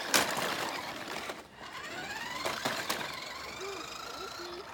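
Electric motor of a remote-control car whining, its pitch rising as it speeds up, with a sharp knock just after the start and a few quick clicks about halfway through.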